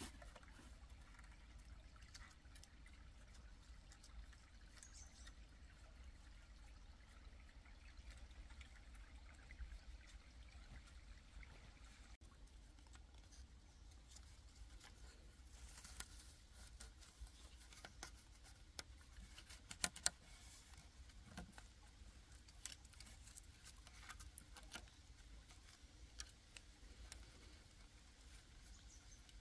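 Faint trickle of a small forest stream, with scattered light clicks and taps from about halfway through, two sharper ones close together about two-thirds of the way in.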